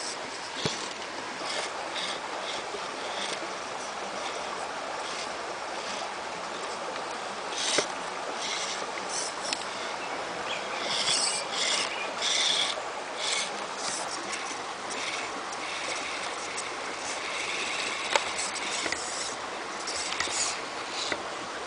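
Steady rush of a shallow rocky creek, with irregular stretches of brighter, higher hiss in the middle and near the end.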